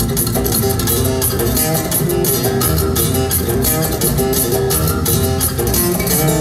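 Acoustic-electric guitar played solo through a concert sound system: a fast instrumental with rapid, sharply attacked notes and a full, low-reaching sound, running without a break.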